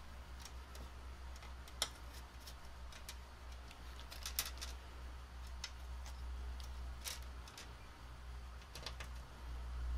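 Brass circuit-board standoffs clicking and tapping as they are picked from a pile and set down on a drilled mounting panel: light, irregular clicks over a steady low hum.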